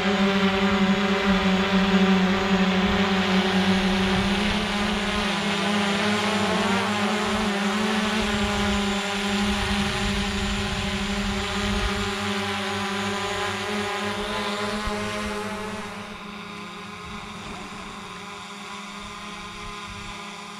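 DJI Mavic Air 2 quadcopter drone's propellers buzzing as it hovers close by, with the pitch wavering briefly mid-way as it manoeuvres. The buzz becomes clearly quieter near the end as the drone climbs away.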